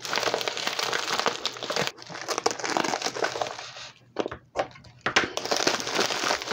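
Plastic poly bubble mailer crinkling and rustling as hands pull and tear it open. It goes quieter for about a second around four seconds in, with a few sharp crackles, then the crinkling starts again.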